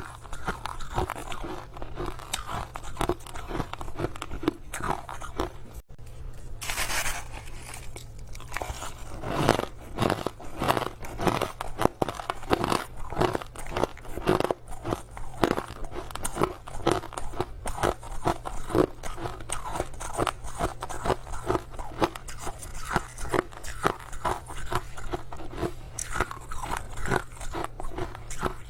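Crushed ice being bitten and chewed close to the microphone: continuous irregular crunching with a brief pause about six seconds in.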